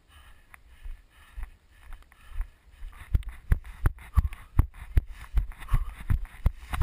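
Running footfalls on grass and dirt, a steady series of thumps at close to three a second, which grow much louder about three seconds in.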